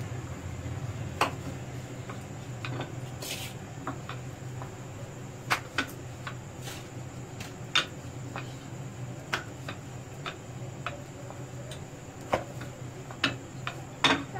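Wooden rolling pin rolling out dough on a marble countertop, with irregular sharp clicks and knocks of the pin against the stone over a steady low hum.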